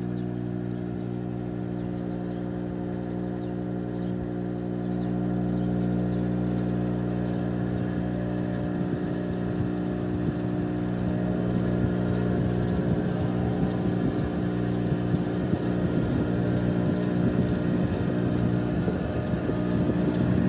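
Evaporative cooler blower, belt-driven by a retrofitted treadmill motor, running with a steady electric hum as the pulley spins up. It grows louder and rougher from about halfway through as the blower gains speed.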